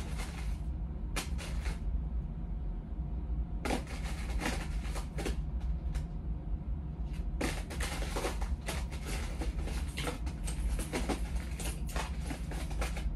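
Costume jewelry pieces, beads and chain clicking and rattling as they are handled and sorted. A few separate clicks at first, then dense clattering from about seven seconds in, over a steady low hum.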